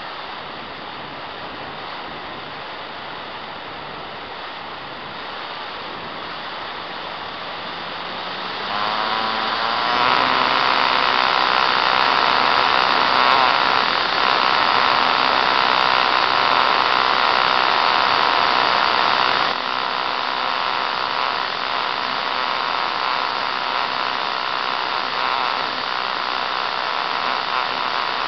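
Electric motor and propeller of an E-flite Apprentice RC trainer plane over a rush of air on the onboard camera. About eight seconds in the motor winds up with a rising whine to high throttle, then about twenty seconds in it eases back a step and keeps running steadily.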